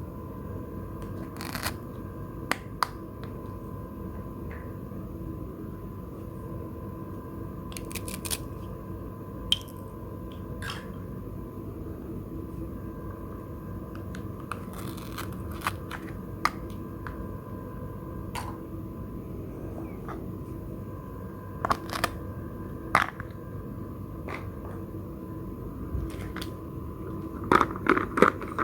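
Scattered light clicks and taps of small objects being handled, over a steady hum; the taps grow busier near the end.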